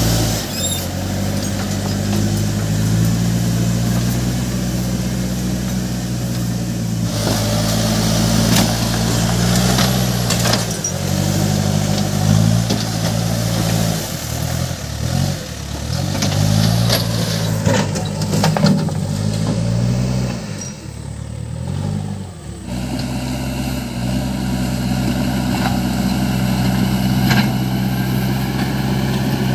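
Case 580 Super M backhoe loader's diesel engine working under load as it pushes gravel. Its pitch dips and rises repeatedly midway, falls off briefly about two-thirds of the way through, then runs steady again, with scattered knocks of stones.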